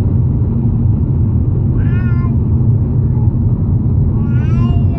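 Steady low road and engine rumble heard inside a car cabin at motorway speed. Two short, high, wavering cries rise over it, one about two seconds in and a longer one near the end.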